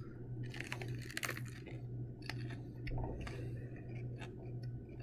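Biting and chewing raw jalapeño peppers: a crisp crunch about half a second in, then scattered wet chewing clicks. A steady low hum runs underneath.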